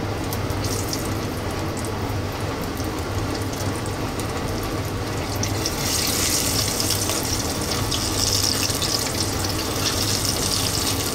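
Battered hon-shimeji mushroom pieces deep-frying in oil at about 180 °C, a steady sizzle. It grows louder and more crackly about six seconds in as more pieces go into the oil.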